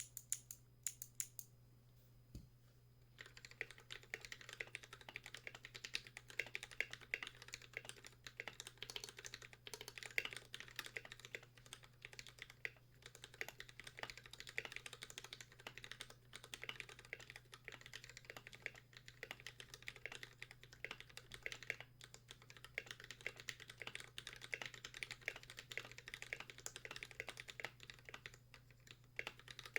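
A few sharp clicks from a NovelKeys x Kailh Speed Navy clicky switch, then from about three seconds in a steady run of typing on an Idobao ID80 mechanical keyboard with Akko Pink v1 switches lubed with Super Lube and NK_ x Tai-Hao BoW Cubic keycaps.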